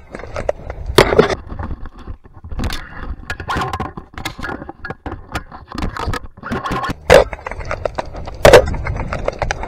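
An airsoft player moving through grass and sand, heard close on a body-worn camera microphone: rustling footsteps and gear rattle under a low rumble. Three sharp cracks stand out, about a second in, about seven seconds in and near the end.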